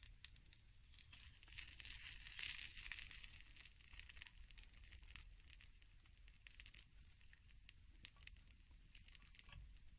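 Meat frying in a pan on a grill over a campfire: a faint sizzle full of fine crackles. It swells louder for about two seconds near the start.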